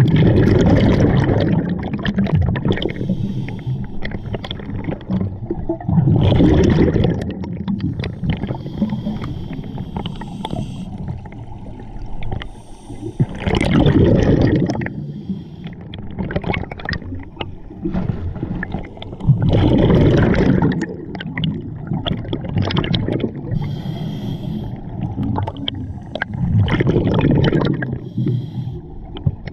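A scuba diver breathing underwater through a regulator: a rush of exhaled bubbles gurgling out five times, about every six to seven seconds, with quieter inhalations between.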